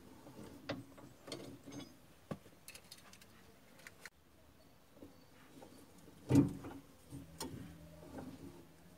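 Threaded-rod bushing press being tightened through a long socket extension, with scattered mechanical clicks and creaks as a new rubber bushing is drawn into the Dana 30 axle's upper control-arm mount. A single louder thump comes about six and a half seconds in.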